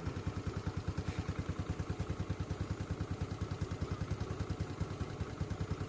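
A small engine running at a steady idle, a rapid even pulse of about twelve beats a second.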